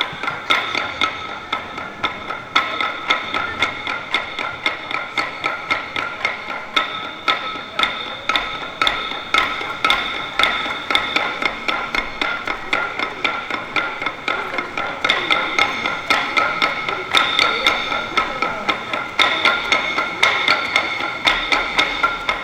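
Dadeumi laundry-beating: wooden clubs striking cloth on a dadeumi stone in a fast, steady rhythm of several knocks a second, played as an ensemble performance.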